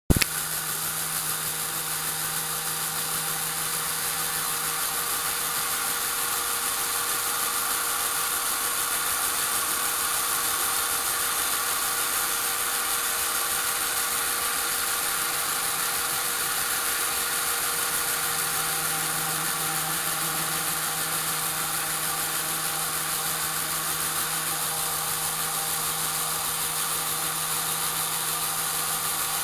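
A Lego Power Functions electric motor running steadily, turning a Technic gear turntable: a continuous whine with gear noise.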